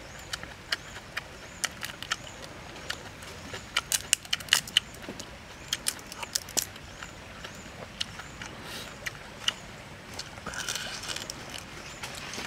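Shell of a cooked shrimp cracking and crackling as it is peeled apart by hand: a run of sharp irregular clicks and snaps, most dense and loudest about four to five seconds in.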